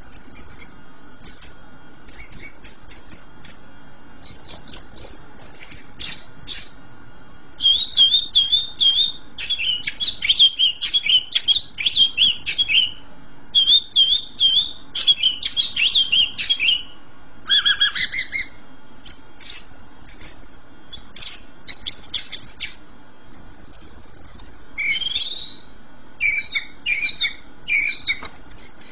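Caged green leafbird (cucak ijo) in full, nonstop song: a rapid, varied run of high chirps, trills and whistled phrases, with one longer held whistle a little past the middle.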